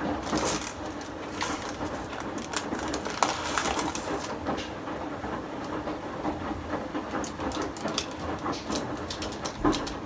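Baking paper rustling and light taps as hands work puff pastry on a parchment-lined baking tray, over a steady low hum.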